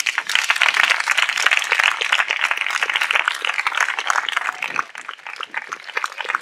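Audience applauding: a dense patter of many hands clapping that thins out about five seconds in.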